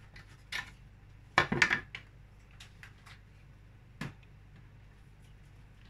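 Hard plastic parts of a tower fan knocking and clicking as the base piece is handled during assembly: a quick cluster of knocks about one and a half seconds in, the loudest, with single clicks before it and near four seconds in.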